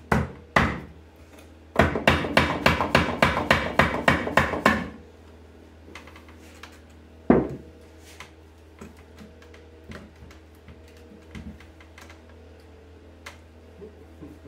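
A hammer knocking on a wooden rocking chair's arm joint to drive it apart: two knocks, then a fast run of about a dozen blows, about four a second, then a single sharp knock a couple of seconds later. Faint small wooden clicks follow as the loosened joint is worked.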